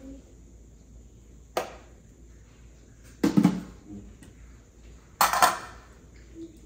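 Kitchen pots and utensils clattering in three sharp knocks, a little under two seconds apart, the second and third loudest.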